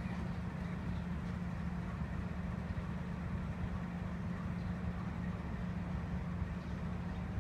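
Diesel-electric locomotive idling at a standstill, a steady low hum.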